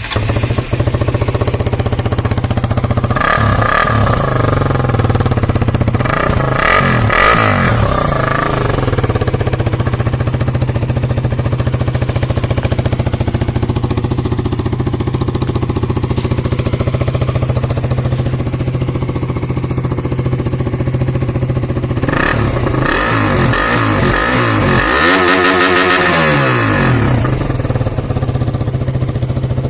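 KTM Duke 200's modified single-cylinder engine idling steadily and being revved: short blips about three seconds in and again around seven seconds, then a longer run of revs rising and falling past twenty seconds.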